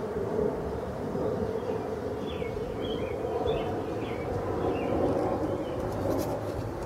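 Steady rush of a shallow stream running over rocks. From about two to five seconds in, a small bird gives a series of short, high chirps.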